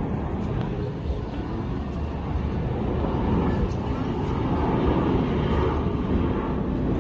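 Twin-tailed fighter jet on low approach, its engine noise steady and growing gradually louder as it nears.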